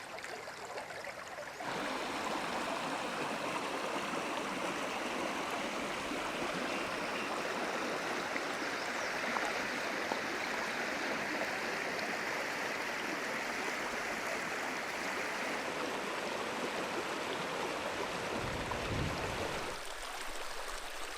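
Creek water running, a steady rushing. It gets suddenly louder about two seconds in and drops back near the end.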